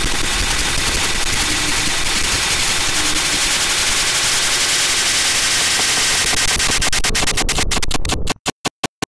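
Harsh noise music: a loud, dense wall of distorted static. Near the end it breaks into a rapid stutter that slows into a few short chopped bursts, then cuts off to silence.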